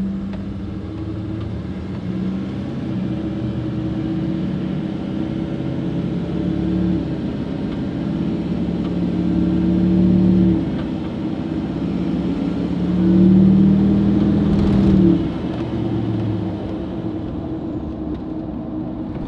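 Duramax turbo-diesel V8 with a 4-inch straight pipe into a 7-inch bed stack pulling away and accelerating, heard from inside the cab. The exhaust note builds twice and eases off sharply about ten and fifteen seconds in.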